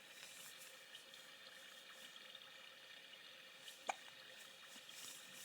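A baby hiccups once, a short sharp sound about four seconds in, over a faint steady hiss.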